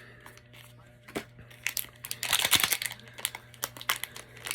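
Mystery pin blind box being opened by hand: packaging crinkling and tearing amid scattered clicks and taps, with a louder burst of crinkling about two and a half seconds in.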